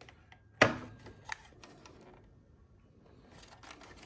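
Clicks and clatter of hands handling the parts of an air filtration unit during disassembly. A sharp click a little over half a second in is the loudest sound, followed by a second click and a few lighter ones, with some rustling and scraping near the end.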